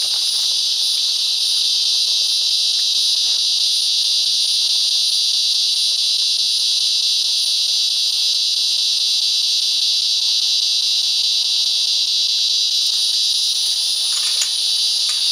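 A loud chorus of cicadas buzzing continuously in the trees, a steady high-pitched drone that doesn't let up.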